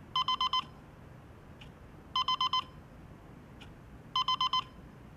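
Digital alarm clock beeping: three bursts of four quick beeps, about two seconds apart, the alarm going off.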